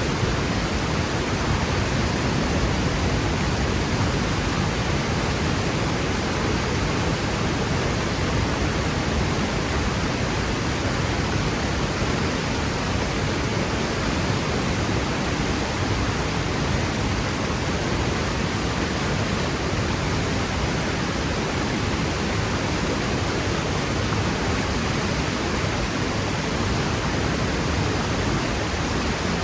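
Waterfall plunging into its pool, a steady even rushing roar across low and high pitches with no breaks.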